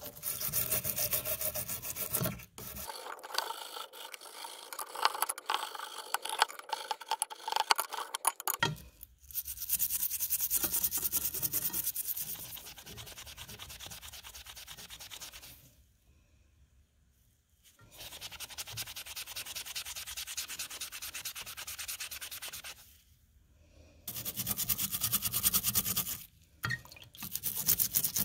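Stiff plastic-bristle brush scrubbing a wet, rusty knife's metal bolster and wooden handle with quick back-and-forth strokes. It comes in bursts, with short pauses about two thirds of the way through and again near the end.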